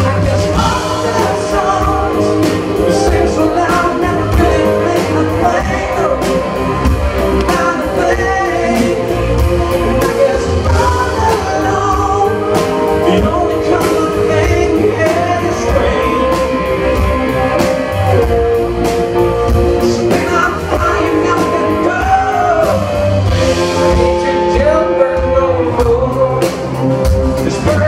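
Live rock band playing: a man singing over electric guitar and a drum kit, with a steady beat.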